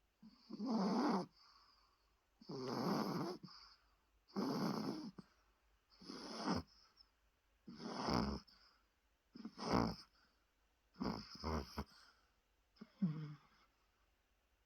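Chihuahua snoring in its sleep: about eight snores, roughly one every two seconds, the later ones breaking into short stuttering pulses.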